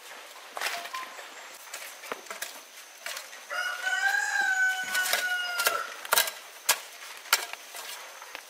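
A rooster crowing once, a long call of about two and a half seconds near the middle. Scattered sharp knocks and clicks come before and after it, the loudest few just after the crow.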